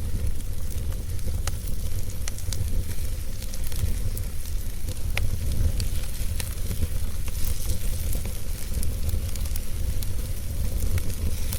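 Wood fire crackling, with scattered sharp pops and snaps at irregular intervals over a steady low rumble.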